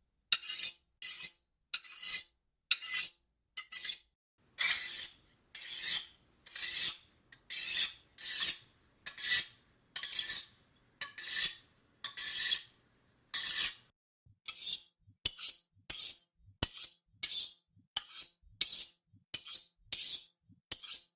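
Large kitchen knife being sharpened: repeated rasping strokes of the blade, about one to two a second. About two-thirds of the way through the strokes become shorter and quicker.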